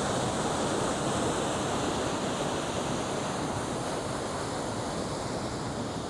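Steady rush of fast-flowing river water running high, easing slightly towards the end.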